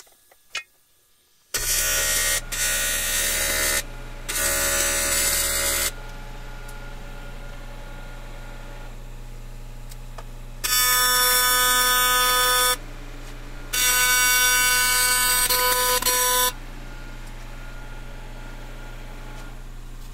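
AC TIG welding arc from a Miller Dynasty 400 on an aluminum wheel rim, buzzing in short welds of about one to three seconds, five times. A steady low hum continues between the welds.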